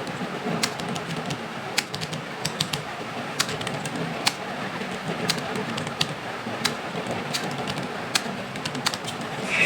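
Computer keyboard keys being struck, scattered irregular clicks a few per second, over a faint steady background murmur.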